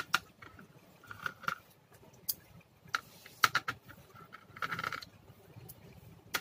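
Scattered small clicks and taps, a few with a short metallic ring, from a hand screwdriver and small screws as the screws of a laptop's internal battery are taken out.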